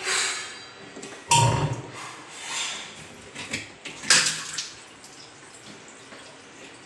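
Water sloshing and plastic clattering as a top-loading twin-tub washing machine is handled to drain the finished wash, with a heavy thump about a second in and a sharp clack about four seconds in. After that comes a faint steady rush of water.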